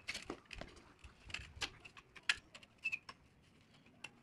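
Irregular light metallic clicks and taps from a metal tile trim strip as it is bent and pressed by hand around a curved pool edge. The loudest click comes a little past halfway.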